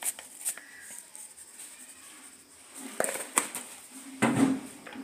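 A few light clicks and knocks in a quiet room, with a louder pair of sharp knocks about three seconds in.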